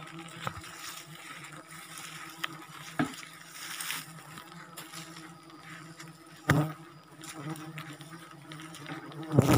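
Faint, steady insect buzzing, with a few sharp knocks about three seconds in, about six and a half seconds in, and near the end.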